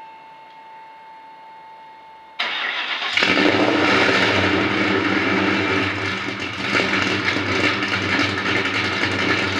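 1996 Ford Mustang GT's DOHC V8 started up: after a faint steady whine, the starter cranks briefly about two and a half seconds in, the engine catches within a second, and it then runs at a steady idle.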